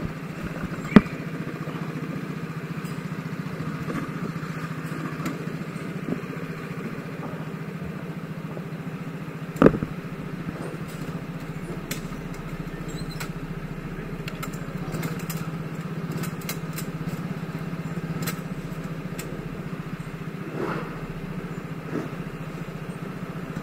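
Go-kart engine idling steadily, with two sharp knocks, one about a second in and one near the middle.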